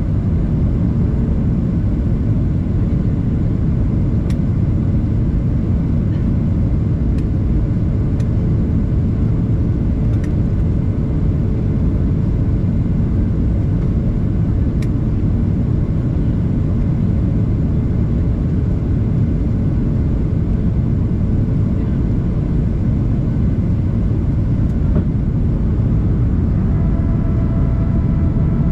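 Steady low rumble of airflow and the CFM56 engines heard inside the cabin of a Boeing 737-800 on descent. A few faint steady whining tones join in near the end.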